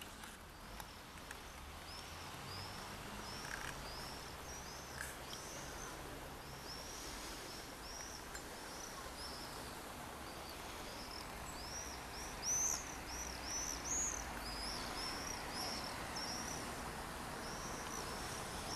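A small bird calling: short, high arched chirps repeated about twice a second, louder about two-thirds of the way through.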